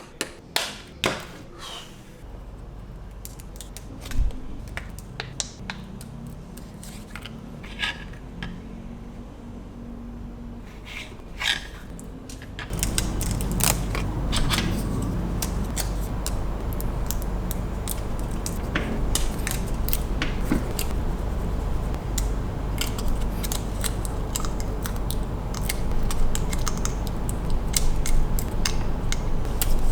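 Small plastic building bricks being handled and pressed together: scattered sharp clicks, then from about halfway through a louder, denser run of clattering and rustling.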